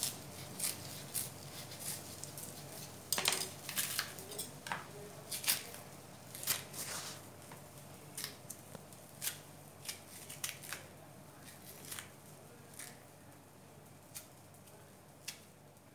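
Small table knife cutting and scraping the peel off green plantains: irregular crisp clicks and scrapes, busy in the first half and thinning out toward the end.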